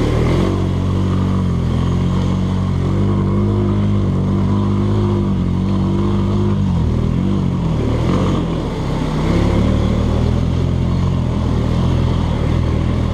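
Engine of a small off-road vehicle running steadily under load as it drives through deep, flooded creek water; the engine note sags briefly twice, about 7 and 9 seconds in.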